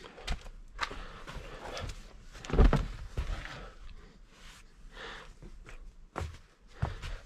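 Footsteps and scattered knocks of objects being moved and handled during a search, with one louder thump about two and a half seconds in.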